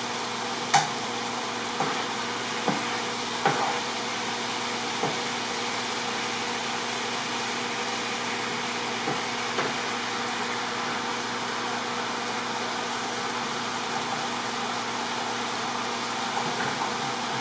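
Chicken tikka pieces sizzling steadily in oil in a large pan, with a few light clicks of a utensil against the pan in the first few seconds.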